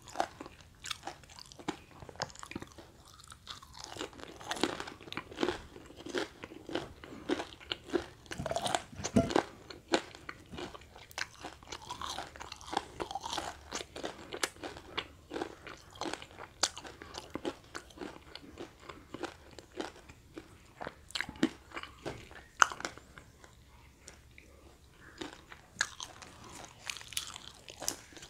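Biting and chewing crispy deep-fried snacks (gorengan: battered tofu and vegetable fritters), a dense, irregular run of crisp crunches with chewing between them.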